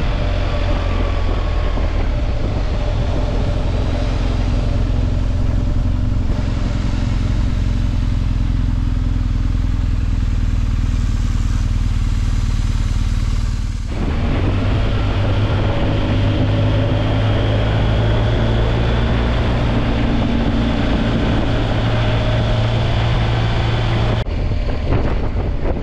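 A BMW R1250GS's boxer-twin engine, heard from the rider's seat. For the first part it runs steadily and idles while the bike waits at a light. Then it runs at road speed. The sound changes abruptly twice.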